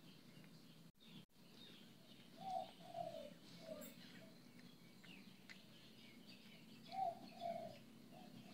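Faint dove cooing: a phrase of three or four low coos about two and a half seconds in and another near seven seconds, with faint chirps of small birds behind.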